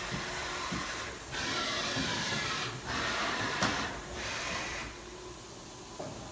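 Hardinge VMC-800II CNC vertical machining center running a program, its axes moving in short runs: a string of hissing, whirring bursts about a second each, with brief pauses and faint clicks between them.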